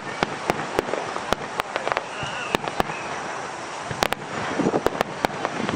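Fireworks bursting: an irregular run of sharp pops and bangs over a steady crackling hiss, thickest about four seconds in.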